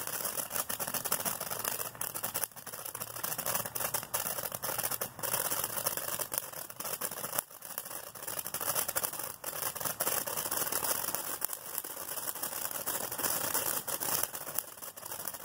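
Dominator Fireworks 'Dante's Peak' fountain firework burning, spraying sparks with a steady hissing rush studded with crackles.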